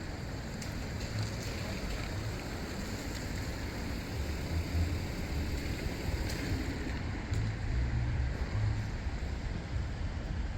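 Wind buffeting the microphone: an uneven low rumble over a steady outdoor hiss, with a few faint clicks.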